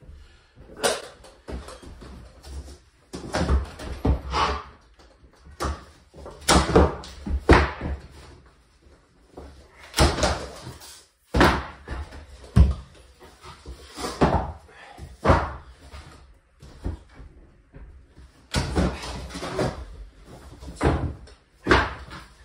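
Irregular knocks, thuds and clatter from vinyl plank flooring being pulled up and handled on a wooden subfloor, several hard strikes a few seconds apart.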